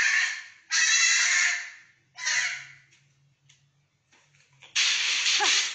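Baby goat bleating: four loud, harsh cries, the first already under way at the start, the third short, the last sliding down in pitch near the end.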